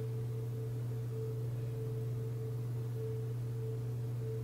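A steady low hum with a faint higher tone that comes and goes above it: constant background hum on the recording.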